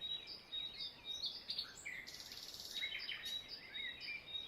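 Several songbirds chirping and singing, short overlapping whistled notes repeating throughout, with a buzzy trill about two seconds in.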